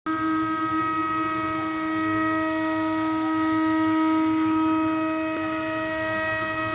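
A 3-axis CNC router's spindle runs with a steady whine while routing a groove in wood, with a higher hissing cutting noise that swells and eases in the middle.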